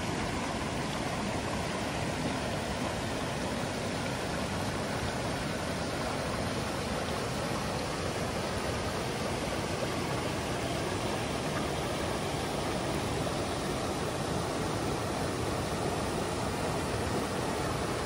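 Waterfall rushing with a steady, unbroken roar of falling water.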